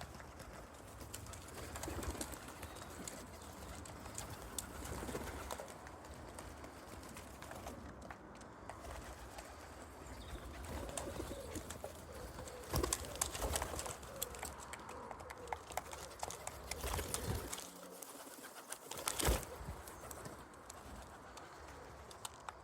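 Pigeons cooing, with a few sharp knocks and clicks scattered through, the loudest a little past halfway and again about three-quarters of the way in.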